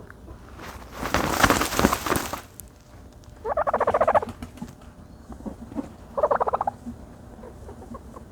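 A turkey dust-bathing: a loud rush of dirt being scuffed and flung for about a second and a half, then two quick rattling gobbles, the first about a second long and the second shorter.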